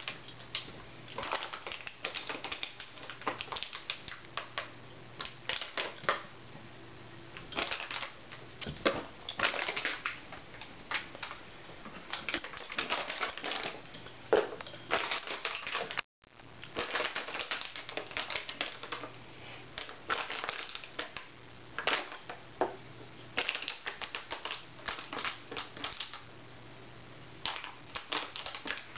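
A dog chewing a plastic water bottle: irregular crackling and crunching of the plastic under her teeth. The sound cuts out for a moment about halfway.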